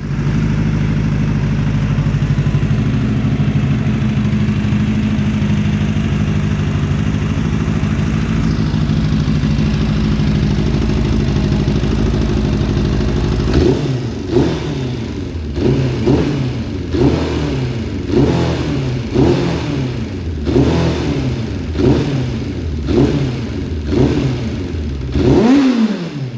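Suzuki Bandit 600's inline-four engine idling steadily, then, about halfway through, blipped on the throttle about ten times, each rev rising and falling back a little over a second apart. The engine note cuts off at the very end.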